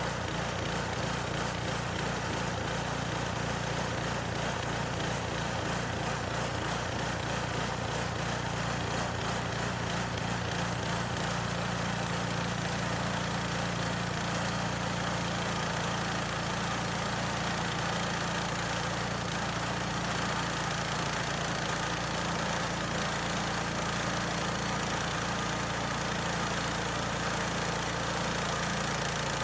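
Small gasoline engine of a Harbor Freight bandsaw sawmill running steadily.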